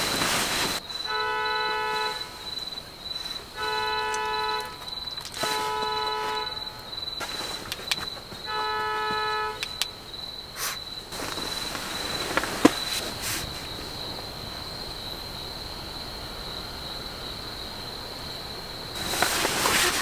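A car horn sounds four times, each blast about a second long with uneven gaps, all within the first ten seconds. It comes from a car parked at the campsite that is not the camper's own. A steady high insect trill runs underneath.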